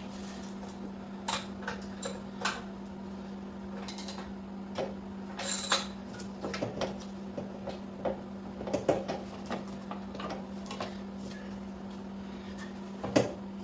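Scattered light metallic clinks and knocks of hand tools and metal parts being handled while a motorcycle jack is raised and parts are lined up, over a steady low hum. The loudest knock comes near the end.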